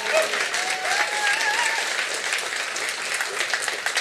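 Audience applauding, with steady, dense clapping throughout.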